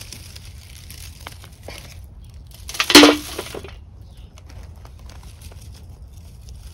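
Hands pulling succulents from a lava-rock and gravel bed: light crackling and rustling of fleshy leaves, stems and stones, with one loud crunching crack about three seconds in.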